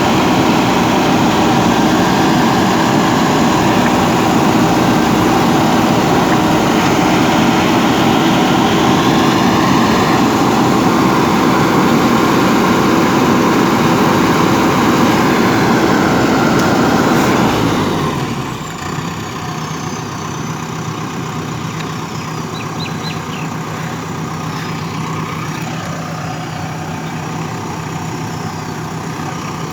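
JCB backhoe loader's diesel engine running at working revs, then a little over halfway through the revs fall away and it settles to a quieter, steady idle.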